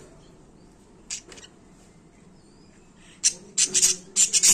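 Lovebirds giving short, sharp high-pitched chirps: two about a second in, then a loud rapid run of them near the end.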